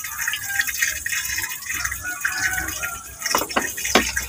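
Raw pork pieces being squeezed and mixed by hand in a plastic basin with their marinade, making irregular wet squelching, with a few sharper clicks near the end.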